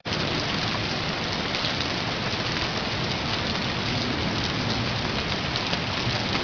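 Steady rain pattering, a dense hiss with fine crackle of drops, cutting off abruptly at the end.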